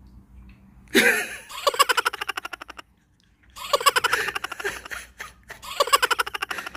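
A person laughing in three bursts of quick, high-pitched giggles, the first about a second in and loudest at its start.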